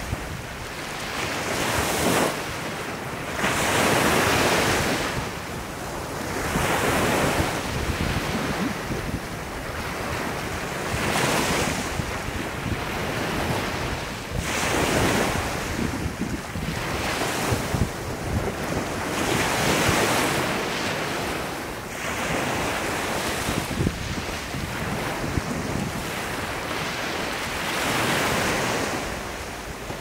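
Small sea waves breaking gently on a sandy beach and washing around rocks, each wash swelling and fading every few seconds.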